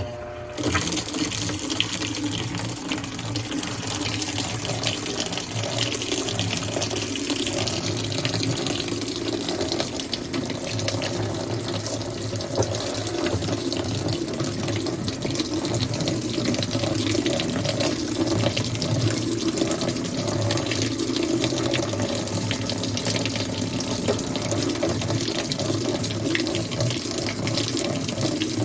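Maytag Centennial washing machine filling: water pouring steadily into the tub through the inlet valve, starting abruptly and running on without a break.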